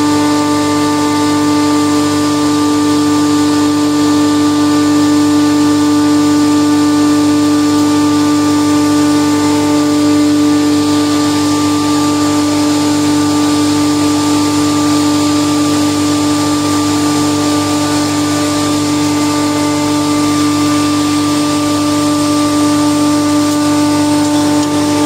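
Steady machinery drone: a constant hum with one strong tone, several fainter higher tones and a hiss over it, without any change in pitch or level.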